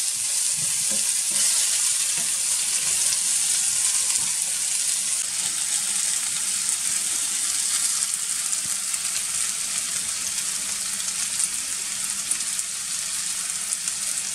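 Par-boiled potato chunks and sliced onions sizzling in a frying pan, a steady hiss, with a few light knocks of a utensil stirring them in the first couple of seconds.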